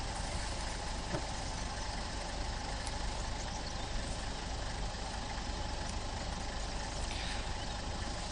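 Safari vehicle's engine idling, a steady low hum, heard from on board.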